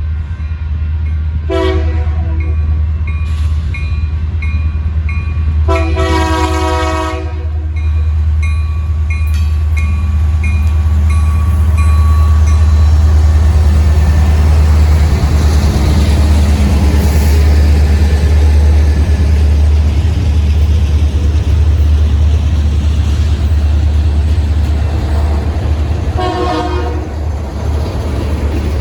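Union Pacific freight train with diesel locomotives passing a grade crossing: a deep engine rumble that grows louder as the train comes through, with wheel-on-rail noise. The locomotive horn sounds three times: a short blast, a longer one, and another short one near the end. A crossing bell dings steadily through roughly the first ten seconds.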